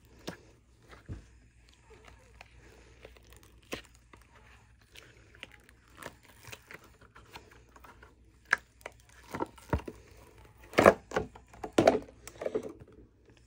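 White silicone mold being flexed and peeled off a cured epoxy resin cake plate: scattered rubbery crinkling and small clicks as it releases, with a few louder sharp snaps near the end.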